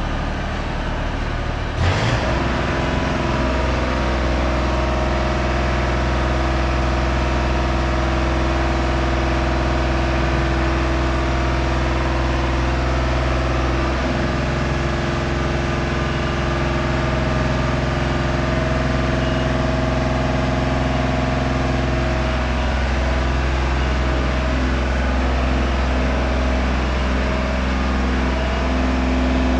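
Heavy machinery running steadily: a loud low hum with several steady held tones, like an idling engine. About two seconds in there is a sharp knock and the low hum grows stronger; around fourteen seconds in the tones shift slightly.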